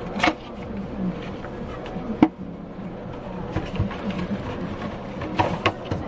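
Handling of a watch box and its packaging: a few sharp clicks and taps, the sharpest just after two seconds in, over a steady low background hum.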